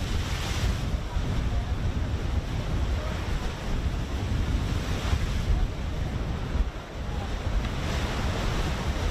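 Wind buffeting the microphone at sea, a heavy steady rumble over the rushing of waves. The rushing swells up louder a few times.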